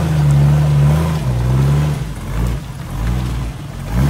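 Off-road 4x4 truck engine revving, held at a steady high pitch for about two seconds, then dropping and wavering before picking up again near the end.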